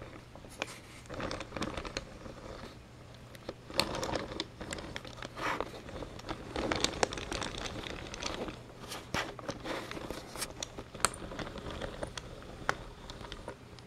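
Handling noise: irregular rustling and scraping with scattered sharp clicks, over a faint low hum.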